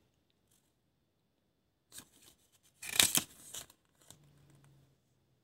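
A folded paper leaflet being handled and turned, giving short crinkling rustles: a light one about two seconds in and a louder, sharper one about three seconds in, then a faint rustle.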